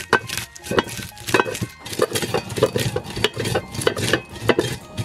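Cast-iron roller grinder: the iron wheel is rolled back and forth in its cast-iron trough, crushing and grinding dried chillies and spices. It makes repeated crunching, scraping strokes, several a second.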